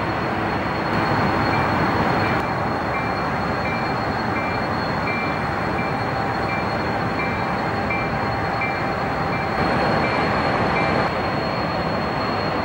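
Diesel locomotives in a rail yard: a steady rumble and noise of railroad equipment. A short high-pitched ding or beep repeats about twice a second from a couple of seconds in until near the end.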